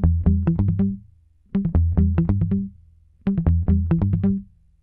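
Background music: a short phrase of quick electronic notes played three times over, with brief pauses between.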